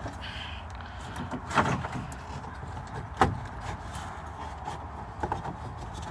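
A few separate knocks and clicks over a steady low hum, from a car battery's terminals being hooked up.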